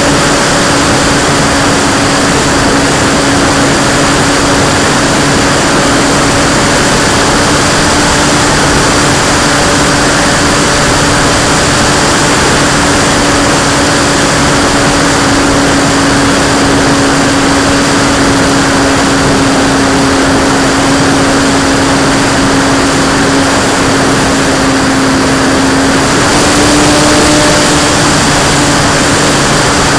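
P-51 model plane's motor and propeller running at a steady pitch, heard from a camera mounted just behind the spinning propeller, with heavy wind rush. The pitch dips slightly a few seconds before the end, then rises again.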